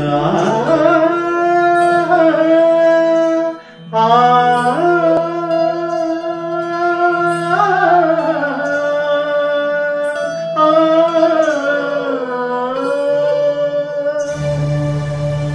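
Male voice singing a wordless Carnatic-style alaap: long held notes with sliding, ornamented pitch bends, in three phrases, over a steady low drone.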